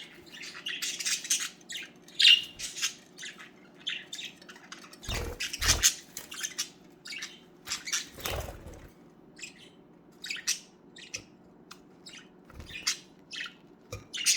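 Pet budgerigars chirping and chattering in quick, high, broken calls all through, with a few louder knocks about five, six and eight seconds in. A faint steady hum runs underneath.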